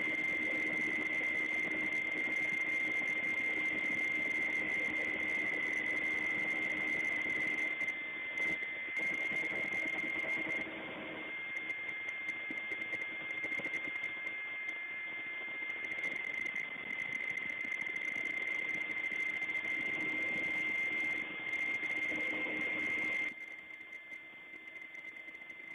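Steady engine noise with a constant high-pitched whine over it, turning suddenly quieter near the end.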